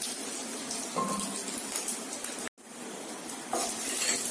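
Hot coconut oil sizzling in a pan with mustard seeds crackling and popping as they splutter. The sound drops out abruptly for a moment a little over halfway through, then the sizzle resumes.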